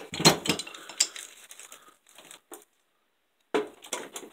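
Metal hand tools (pliers and a pipe wrench) clinking and knocking as they are picked up and set down on a tabletop: a cluster of clicks at the start and another near the end, quiet in between.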